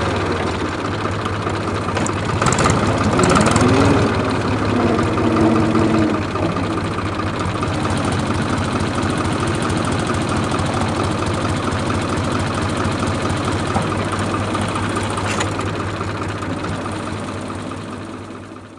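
IHC 383 tractor's three-cylinder diesel engine running steadily, heard close by the exhaust stack. The sound dies away near the end.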